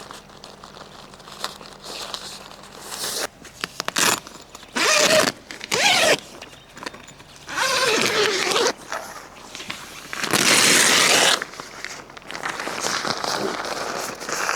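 A zipper pulled in about four quick strokes, each a loud rasp that sweeps in pitch, with rustling between them.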